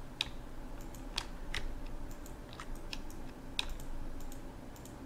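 Computer mouse and keyboard clicking: sharp single clicks at irregular intervals, roughly one or two a second, while faces are picked on a mesh.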